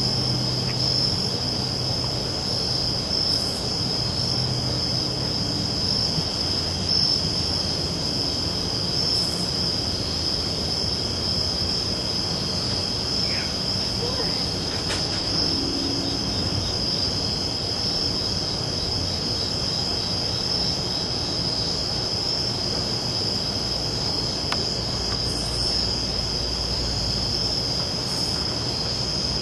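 Crickets chirping in a steady, continuous high trill, over low background noise.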